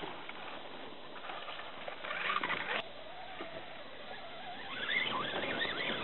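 An RC rock crawler's small electric motor and gear train whining in spurts as it climbs over a tree root, the pitch rising and falling with the throttle. A louder spurt about two seconds in cuts off sharply, and a wavering whine comes near the end.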